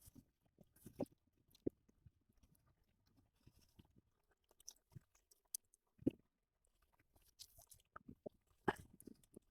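Near silence broken by a few faint, scattered clicks and taps, the clearest about two seconds in and again about six seconds in.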